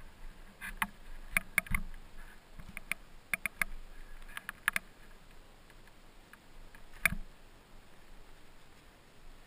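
Scattered sharp clicks and knocks, with one heavier thump about seven seconds in, as the rider moves about on a parked ATV with its engine off.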